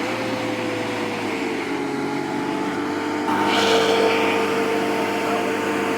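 Refrigerant recovery machine running steadily after spinning up, its motor and compressor giving a steady hum with a constant whine, and a hiss of refrigerant flow growing stronger about three seconds in as the system's charge is pulled out.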